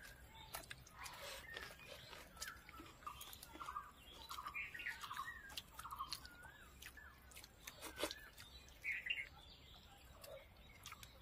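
Faint birdsong: short warbling chirps repeated again and again, with scattered soft clicks of someone eating rice by hand.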